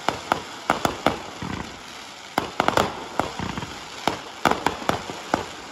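Fireworks going off in a rapid, irregular run of sharp bangs and cracks, coming in clusters.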